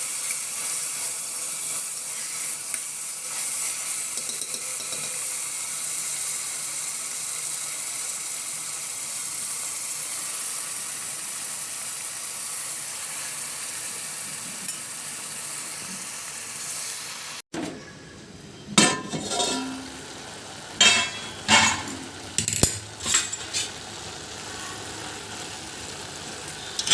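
Methi chicken sizzling steadily in a hot pan. After an abrupt cut about two-thirds of the way through, the sizzle is quieter and a spoon clatters against the pan about six times while the dish is stirred.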